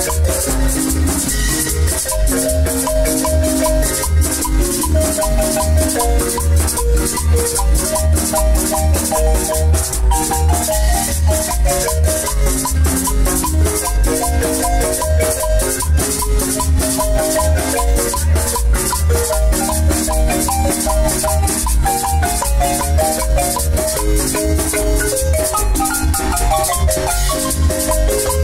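Marimba band playing live dance music: quick runs of mallet notes over a steady, pulsing bass beat, with a metal shaker keeping time.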